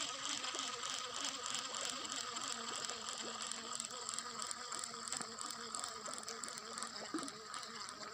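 Abu Garcia Pro Max baitcasting reel being cranked, its gears giving a fine, rapid, continuous clicking as the lure is retrieved.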